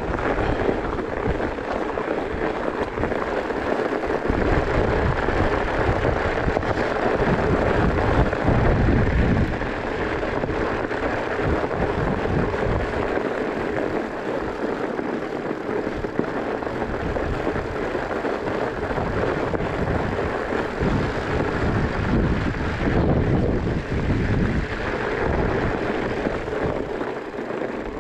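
Wind buffeting the action-camera microphone in uneven gusts, over the steady crunch and hiss of 5-inch fat-bike tyres rolling through packed snow.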